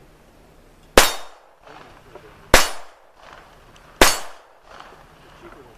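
Three gunshots about a second and a half apart, each a sharp crack followed by a short trailing echo.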